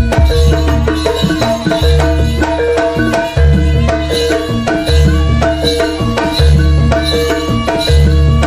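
Live jaranan accompaniment: a Javanese gamelan-style ensemble playing steady, loud music, with hand-drum patterns over ringing pitched tones and a deep low stroke about every one and a half seconds.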